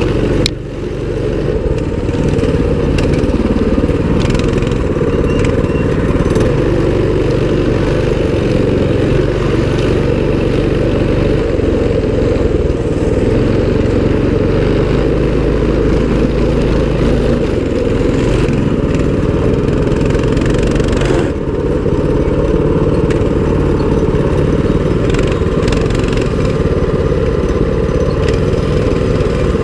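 Mini bike's small engine running under throttle on a dirt trail, its pitch stepping up and down as the rider opens and eases off the throttle.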